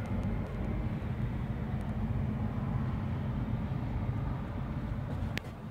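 1972 Chevrolet C20's 402 big-block V8 idling steadily, with a brief tick near the end.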